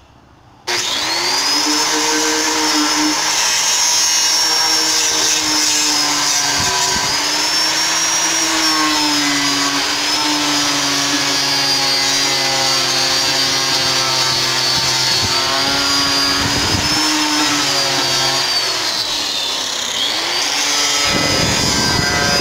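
Electric sander with a round pad switching on about half a second in and running steadily against a wooden board. Its motor pitch wavers as the pad is pressed and dips briefly near the end before picking back up.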